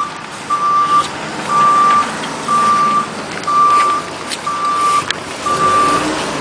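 Construction vehicle's backup alarm beeping steadily at one pitch, about one half-second beep a second.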